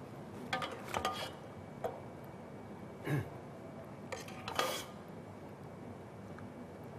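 Metal ladle clinking and scraping against a steel stockpot and serving bowl as stew is ladled out: scattered light knocks and clinks, with a brighter clink about four and a half seconds in.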